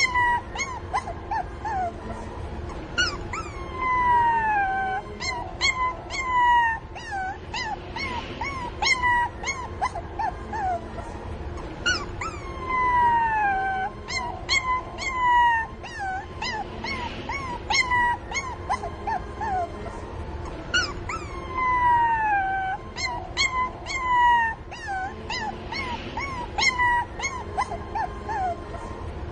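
Young puppies whimpering and crying for their mother: a stream of short, high-pitched squeals and yips, many sliding down in pitch. The same run of cries repeats about every nine seconds.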